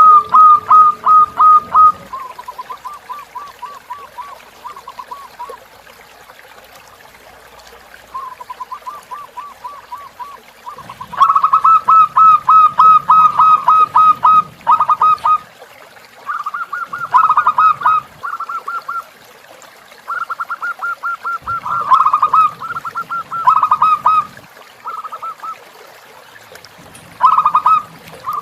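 Zebra dove (perkutut) song: bursts of rapid staccato cooing notes, about ten a second, each run lasting one to several seconds. Loud runs alternate with softer ones, the softest run early on.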